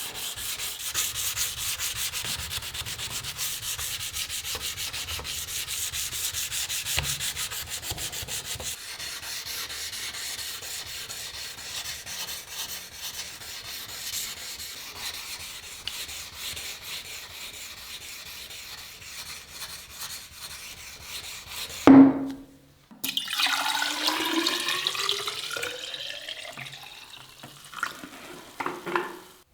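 Abrasive being rubbed back and forth on a rusty steel knife blade in rapid, even strokes. About three-quarters of the way through there is a sharp knock, followed by a ringing metal scrape whose pitch rises.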